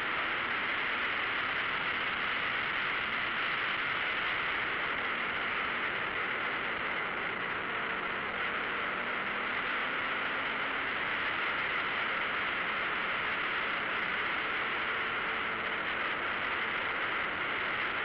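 Car running at speed on a racetrack, heard through an onboard camera: a steady hiss of wind and road noise with a faint engine drone underneath.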